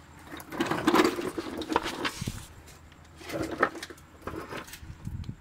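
Handling noise in three bursts of rustling and scraping with light clicks, from hands working around the axle's inner CV joint and the camera being moved about.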